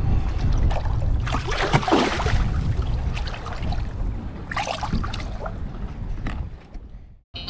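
Water splashing and sloshing as a large channel catfish is let go at the water's surface beside the boat, in two bursts, the first about a second in and the second past the middle. Wind rumbles on the microphone underneath.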